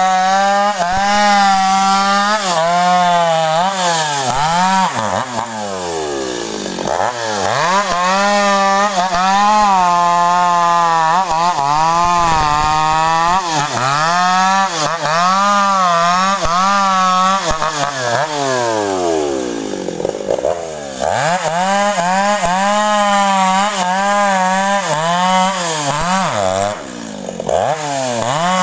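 Stihl two-stroke chainsaw running at high revs while cutting through sengon (albizia) wood, its engine pitch sagging and recovering again and again as the chain bites under load. The engine falls off to low revs around two-thirds of the way through, revs up again, and drops briefly near the end.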